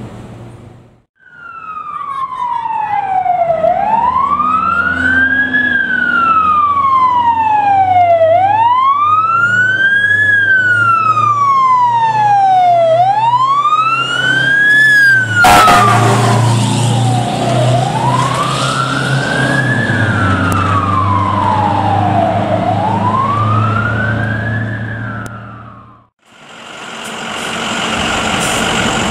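Fire truck siren on wail, sweeping slowly up and down about every four and a half seconds over the truck's engine, with a louder burst of noise around the middle. Near the end the siren is gone, and a fire engine's engine idles steadily.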